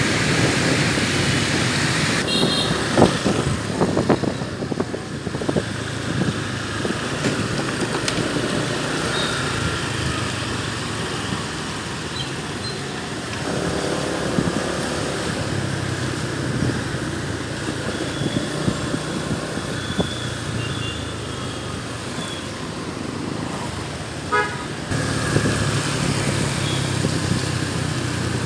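Street traffic with engines running steadily and short horn toots here and there.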